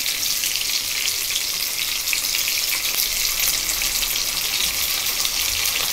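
Chopped onions, a bay leaf and freshly added chopped tomatoes sizzling in hot oil in a frying pan: a steady crackling hiss.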